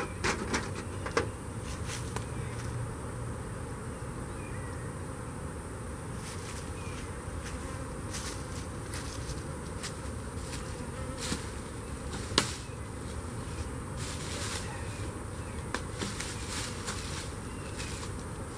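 Honey bees buzzing steadily around opened hives, a dense swarm hum, broken by a few sharp clicks, the loudest about two-thirds of the way in.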